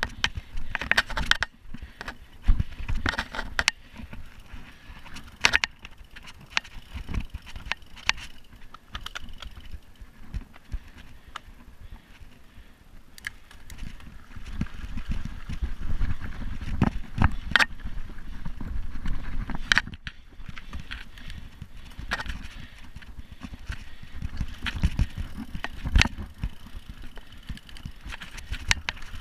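Mountain bike ridden over a dirt forest trail: the bike rattles with many sharp clicks and knocks, over a low rumble of the tyres on the dirt that grows louder about halfway through as the rider pedals hard and speeds up.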